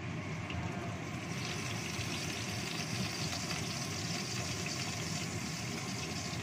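Chillies and shallots sizzling in oil in a wok over a gas burner's steady low roar; the sizzle grows louder about a second and a half in.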